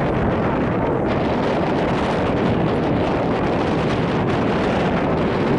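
Wind buffeting the camera microphone: a steady, dense rumble of noise.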